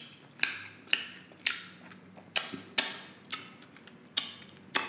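Close-miked chewing of sticky glazed pork ribs: a steady run of sharp mouth clicks, about two a second.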